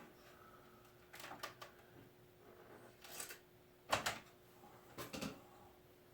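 Scattered clicks and knocks of hard plastic projector housing parts being handled and fitted together, the loudest knock about four seconds in.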